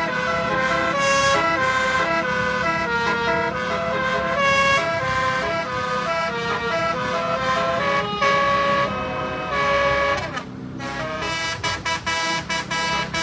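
Basuri-style telolet melodic horn playing a dangdut tune as a run of held, stepping notes. It pauses briefly with a falling slide about ten seconds in, then carries on.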